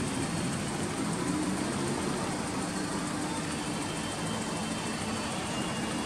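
An engine idling steadily under even outdoor noise.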